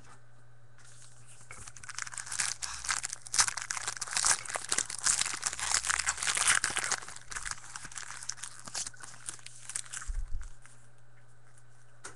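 Crinkling and tearing of a trading-card pack's foil wrapper: a dense crackle that starts about a second in, is loudest in the middle and dies away near the end, over a steady low electrical hum.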